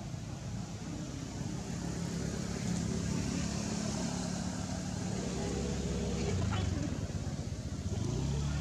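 Steady low rumble of a motor vehicle's engine running, a little louder from about two seconds in.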